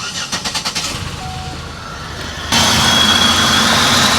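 Buick LeSabre's V6 being cranked by the starter, with a short chime about a second in, then catching about two and a half seconds in and running steadily. It is still misfiring: the junkyard coil packs did not cure it, and the owner puts the fault down to the ignition module under the coils.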